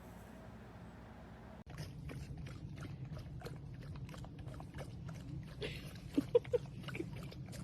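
A dog's noises: a run of quick clicks starting about two seconds in, with three short squeaks a little after six seconds in.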